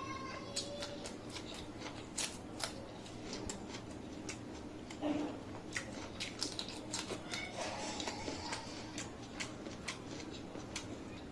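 Close-miked eating sounds: a person chewing food, with many short wet clicks and smacks of the mouth at an irregular pace, and a brief louder low sound about five seconds in.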